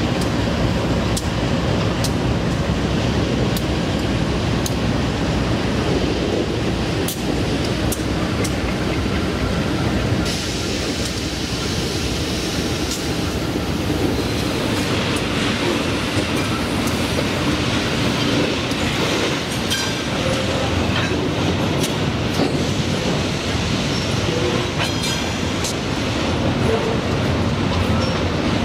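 Freight train passing: several diesel locomotives running, then loaded gondola wagons, with the wheels clicking over rail joints. A faint wheel squeal comes in near the end.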